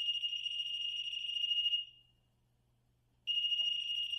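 REM pod's alarm sounding a high, steady electronic tone, set off when something comes near its antenna. The tone stops about two seconds in and starts again about a second later.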